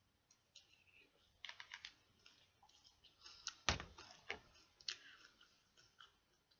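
Cereal being eaten: soft clicks and crunches, with a quick run of them about one and a half seconds in and a louder knock a little over three and a half seconds in.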